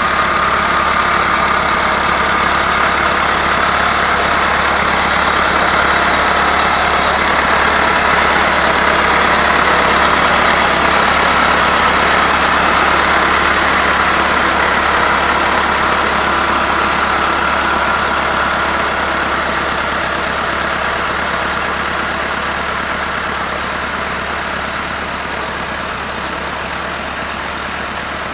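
Massey Ferguson 390 4WD tractor's diesel engine running steadily under load while ploughing, with a steady high whine over the engine note. It grows slightly louder, then slowly fades toward the end.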